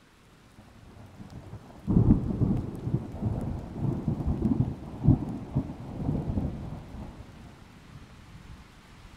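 Thunder: a faint rumble builds, then a sudden loud peal about two seconds in rolls on in several surges for some four seconds before dying away, over a faint steady hiss of rain.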